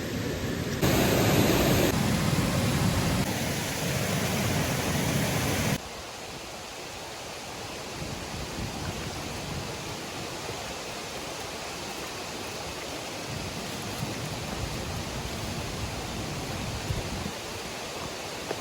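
Steady rush of flowing stream water. It is louder for the first six seconds, with sudden jumps in level at about one, two and six seconds, then settles into a softer, even rush.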